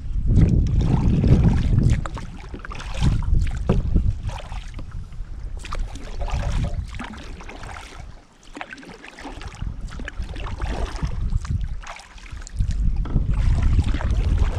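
Kayak paddle strokes splashing and dripping in the water at intervals of a second or two, with wind buffeting the microphone in a low rumble that is strongest at the start and near the end.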